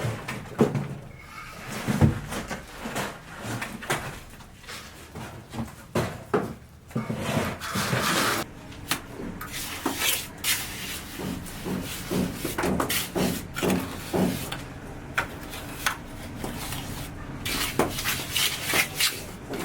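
Irregular wooden knocks, bumps and scraping as plywood sheets are handled and shifted into place.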